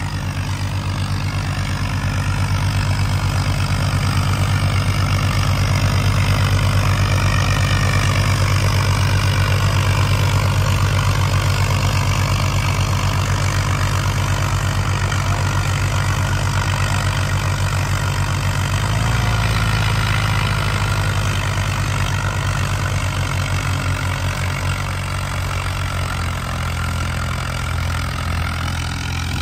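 Swaraj 855 and New Holland 3600 diesel tractor engines running hard under heavy load as the two tractors pull against each other in a tug of war, with a steady, dense low engine note that shifts about two-thirds of the way through.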